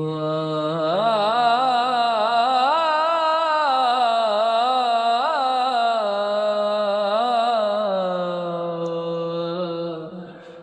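Sad ringtone melody: a single wordless voice holds a low note, then rises into a wavering, ornamented line, settles lower and fades near the end.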